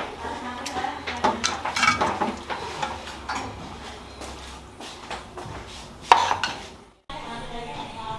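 Metal spoon clinking and scraping against a steel pot and a ceramic plate while gravy is ladled out, a series of irregular clinks with one louder knock near the end. The sound cuts off suddenly shortly before the end.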